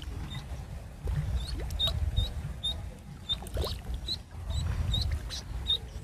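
A duckling peeping over and over in short, high chirps, about two a second, while low splashing comes and goes as the duckling bait is jigged in the water.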